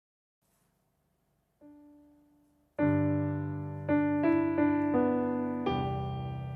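Background piano music: near silence, then a single soft note about a second and a half in, and piano chords and melody entering near the three-second mark, each note struck and fading.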